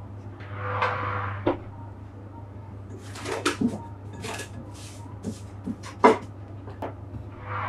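Plastic cling film crinkling in short bursts as it is handled on a glass bowl, with a few sharp knocks, the loudest about six seconds in, over a steady low hum.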